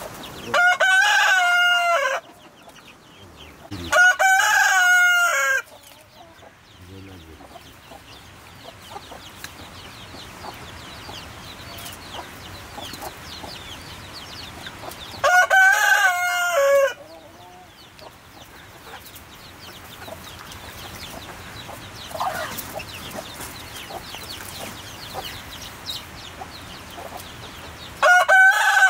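A rooster crows four times, each a long call of about a second and a half: twice in the first six seconds, once about halfway through, and again right at the end.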